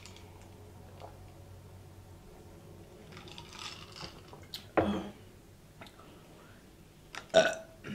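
A woman burps loudly near the end, after gulping sparkling water. A shorter loud mouth sound comes about five seconds in.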